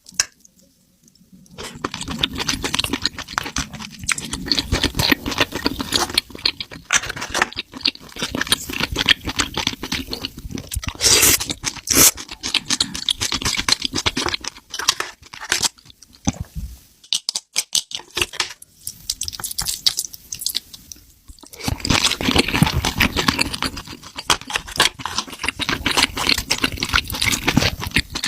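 Close-miked eating: chewing and crunching food right at the microphone, in stretches broken by short pauses.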